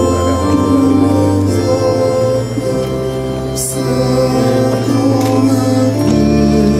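Sacred music: voices singing over held organ chords, the bass note changing about a second in and again near six seconds.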